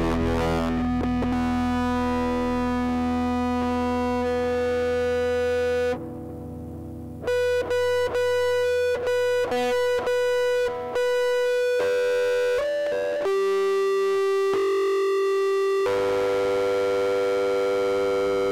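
Distorted electric guitar played through effects, holding long sustained notes with bass guitar underneath. About six seconds in the sound drops briefly, then comes back chopped, cutting in and out several times, before settling on long held notes again.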